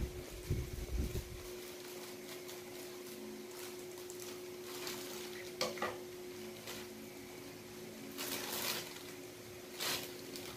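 Clear plastic bag crinkling and rustling in several short bursts as it is cut open with scissors and pulled apart to free a toy, with a few soft knocks in the first second. A steady low hum runs underneath.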